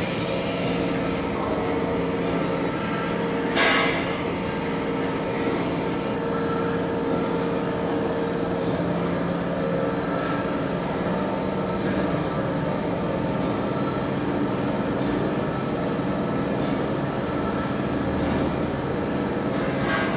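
Heavy lathe running, spinning a large steel drum workpiece: a steady mechanical drone and hum from the drive. A short sharp noise about four seconds in.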